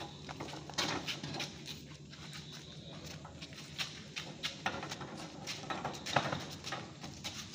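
Steel scaffold frame knocking and clanking irregularly as it is moved, a dozen or so sharp knocks over a steady low hum.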